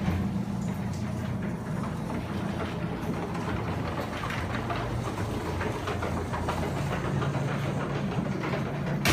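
An old garage door opener's motor runs with a steady hum and rattle as it drives the door, then stops suddenly near the end when the door reaches the end of its travel.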